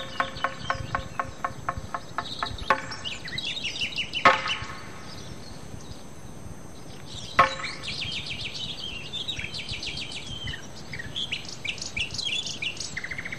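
Birds chirping and singing: a fast pulsing trill for the first few seconds, two short sharp calls about four and seven seconds in, then many quick high chirps.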